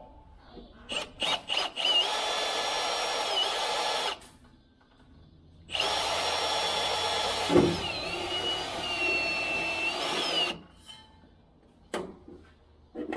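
Cordless Milwaukee Fuel drill with its bit on an extension, boring through the combine's sheet-metal panel. A few short trigger blips come first, then two long runs of about two and five seconds. The motor whine dips in pitch each time the bit bites and then recovers, and there is a sharp knock partway through the second run.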